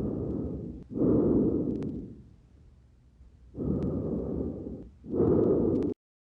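Breath sounds heard through a stethoscope on the back of the chest: two breaths, each a softer phase running into a louder one, with a few faint clicks. The sound cuts off suddenly near the end.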